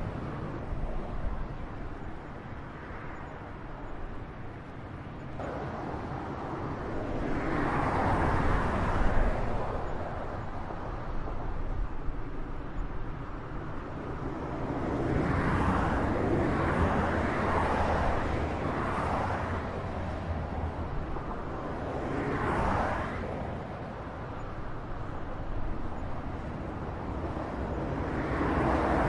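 Highway traffic: a steady rush of tyres and engines, with single vehicles swelling louder as they pass by. The loudest pass comes about eight seconds in, a string of them follows in the middle, and another comes near the end.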